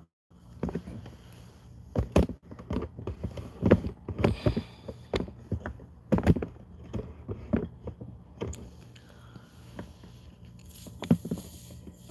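Handling noise from the camera being picked up and repositioned: an irregular run of knocks, taps and rubbing close to the microphone. The sound cuts out briefly at the very start.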